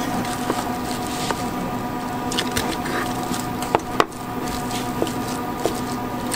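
Food-stall background: a steady mechanical hum with several constant tones, and about eight scattered sharp clicks and taps, the loudest about four seconds in.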